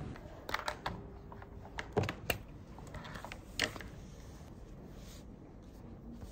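A scattering of sharp clicks and taps from things handled at a desk, bunched in the first four seconds with the loudest about two seconds in, then quiet room tone.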